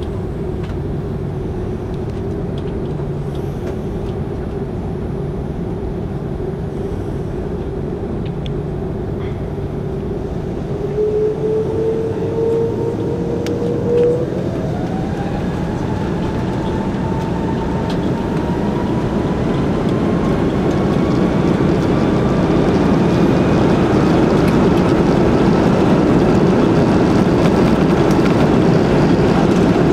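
Airbus A330-300 jet engines heard from inside the cabin, spooling up for takeoff. A steady engine hum gives way to a whine that rises in pitch from about a third of the way in, and the rush of engine noise grows louder and then holds at takeoff power as the takeoff roll begins.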